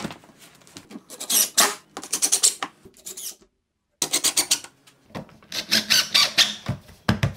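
Cordless impact driver with a nut-driver socket driving washer-head screws through a solar panel's corners into a wooden workbench, in three bursts of rapid hammering rattle. A sharp knock comes at the start and a dull thump near the end.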